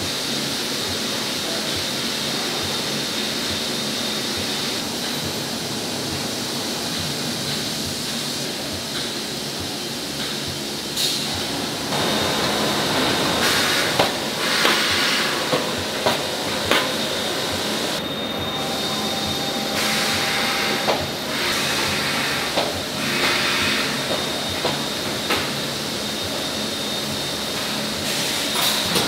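Tofu production-line machinery running with a steady hiss and a high steady whine. From about halfway, the packing machine adds repeated short clanks and bursts of air hiss.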